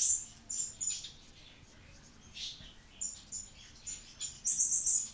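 Artline 500A whiteboard marker squeaking on a whiteboard as letters are written: short, high squeaks in irregular runs, with a pause partway through and a quick cluster near the end.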